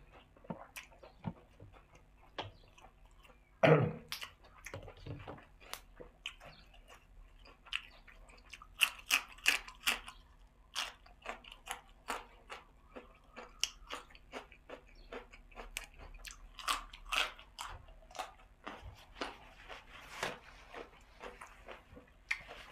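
Close-up eating sounds: crisp bites and crunchy chewing of a raw green vegetable stalk, heard as many irregular sharp clicks, with one louder thump about four seconds in.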